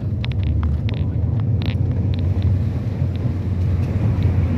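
Toyota Vios driving, heard from inside the cabin: a steady low rumble of engine and road, with a few faint ticks and rattles in the first two seconds.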